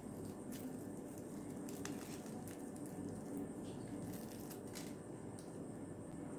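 Crisp breadcrumb coating on a fried chicken finger crackling faintly as the finger is torn apart by hand, a few light crackles over a steady low hum.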